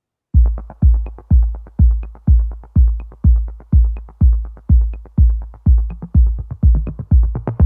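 Background electronic music with a steady kick drum about twice a second and light ticking percussion between the beats, starting about a third of a second in and getting busier near the end.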